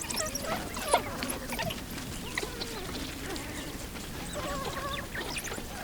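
A pack of African painted wolves (African wild dogs) calling to each other as they greet and play before a hunt: many short, high-pitched yips, twitters and squeaks overlapping, with a few warbling calls near the end.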